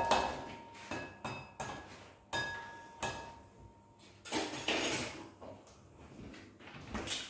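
An egg knocked several times against the rim of a glass mixing bowl, each tap setting the glass ringing briefly. About four seconds in comes a louder crunching rustle as the shell is broken open over the bowl.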